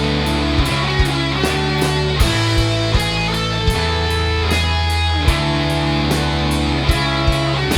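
Rock band playing an instrumental break: electric guitar chords over bass and drums, with regular drum and cymbal hits.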